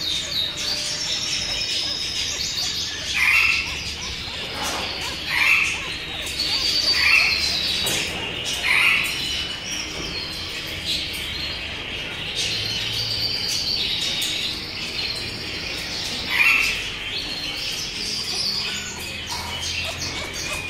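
Many birds chirping and twittering at once, with a short falling call repeated several times, about every second or two for the first half and once more later on.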